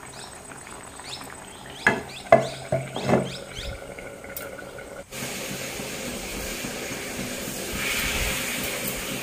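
A few short, loud sounds in the first half, the loudest about two seconds in. Then, after a sudden change, a steady hiss of batter cooking in a hot aluminium pan as it is spread by hand, growing a little louder near the end.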